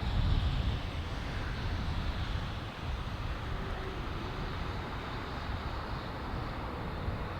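Embraer E195-E2 jet airliner on a wet runway: a steady, deep rumble of jet noise.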